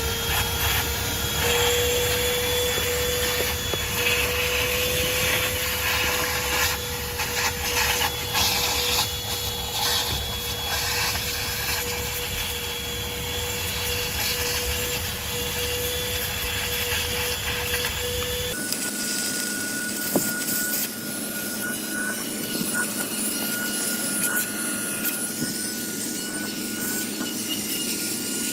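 THISWORX 12V corded handheld car vacuum running, its motor whine climbing as it starts and then holding steady, while the brush attachment scrubs against the seat upholstery. About two-thirds of the way through, the sound switches abruptly to a higher-pitched whine.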